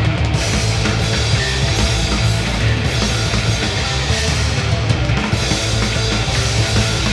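Loud heavy rock music played by a band: distorted guitars, bass and a drum kit, dense and unbroken.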